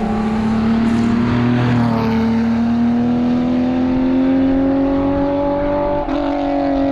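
Porsche 911 RSR's flat-six engine running hard, its note climbing slowly as the car accelerates, with a short break in the note about six seconds in.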